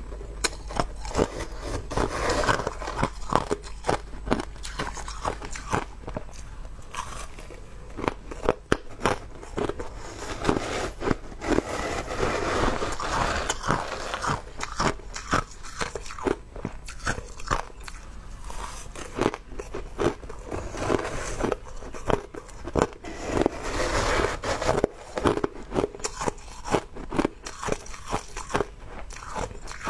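Crushed ice being bitten and chewed close to the microphone: a dense, uneven run of sharp crunches and crackles. A metal spoon digs into crushed ice in a plastic tub at times.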